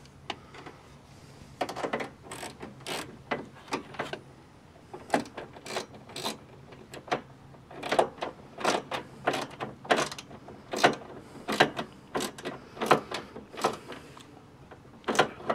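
Orange-handled hand driver tightening a nylon-insert lock nut inside a metal tailgate: a run of short, irregular clicks and scrapes of tool on metal, a few a second.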